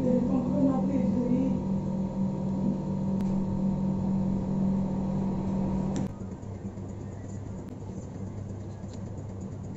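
A steady low electrical-sounding hum with a few fainter higher tones above it. It becomes quieter about six seconds in.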